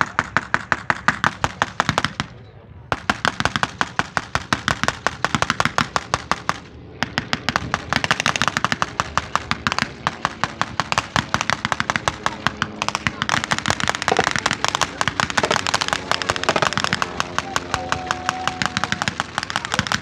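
Long strings of rapid sharp pops, like machine-gun fire, from simulated gunfire in a mock First World War air battle. They break off briefly about two seconds in and again about seven seconds in.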